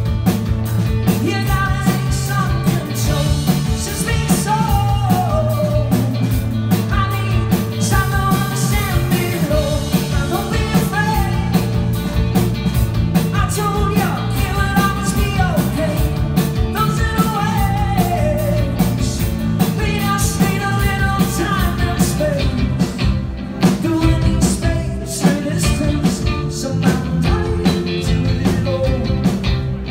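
Live rock music: a male singer with an electric guitar, backed by a drum kit, with a steady drum beat under the vocals.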